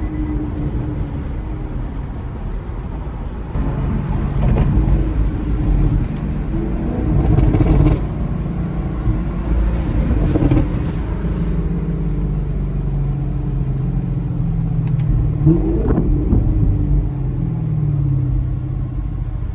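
Chevrolet Camaro SS V8 engine and road rumble heard from inside the car while driving, the engine note rising and easing off several times as the car speeds up and slows.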